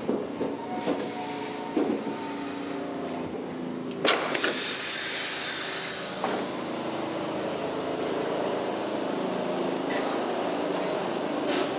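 Stockholm C6 metro train coming to a stop at a platform, with steady motor tones. About four seconds in there is a sudden loud hiss of air as the doors open, then the steady hum of the standing train.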